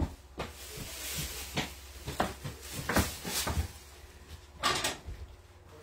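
Kitchen items being set down and handled on a wooden tabletop, a plastic cutting board among them: a series of short knocks and clatters, with a brief rustle of a plastic bag a little before the end.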